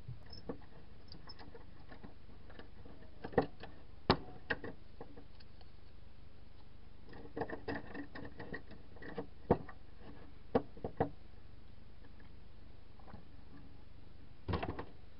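Scattered light clicks and taps of hands handling a plastic C-size battery holder with metal solder tabs and wires, a few sharper clicks among softer rustles and a short cluster near the end, over a low steady hum.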